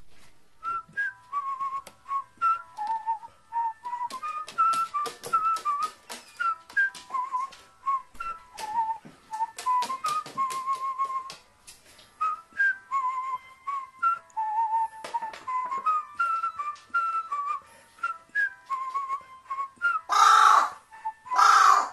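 A whistled tune in background music, over many short sharp clicks and taps. Near the end a carrion crow gives two loud, harsh caws about a second apart.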